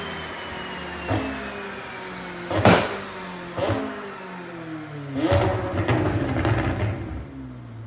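McLaren 600LT's twin-turbo V8 winding down off the throttle, its pitch falling steadily, with loud exhaust pops: single sharp cracks about one, three and four seconds in, then a burst of rapid crackling a little past five seconds.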